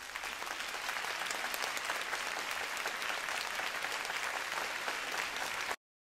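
Audience applauding: a dense, even clatter of many hands that builds over the first second, holds steady, then cuts off abruptly near the end.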